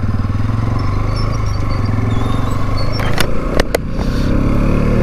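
Bajaj Pulsar NS200 single-cylinder motorcycle engine running under way as the bike pulls off the roadside and gets moving on the highway, with a few sharp clicks about three seconds in.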